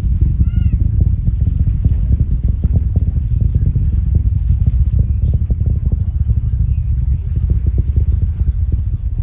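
Distant Falcon Heavy rocket launch: the Merlin engines' sound arriving as a loud, steady low rumble with constant crackling.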